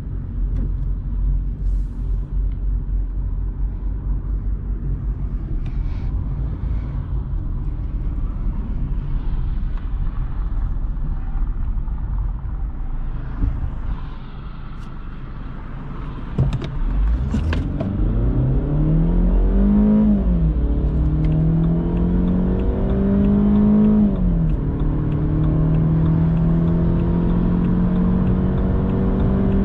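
Cabin sound of a 2006 BMW 118i's 2.0-litre four-cylinder petrol engine with automatic gearbox. It starts as steady engine and road rumble while driving. A little past halfway comes a full-throttle acceleration: the engine note climbs, drops at an automatic upshift, climbs again and drops at a second upshift, then rises more slowly.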